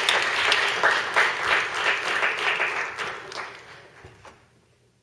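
Audience applauding, fading away over the last two seconds.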